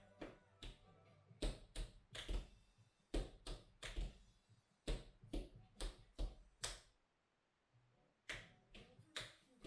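Tap shoes striking a wooden tap board: a rhythmic run of sharp metal-on-wood clicks, with a pause of about a second near the end before the tapping resumes.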